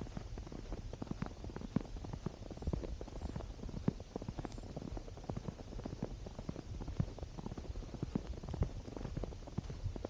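A hiker's footsteps on a winter trail: a steady run of short, irregular crunching knocks, over a low rumble on the microphone.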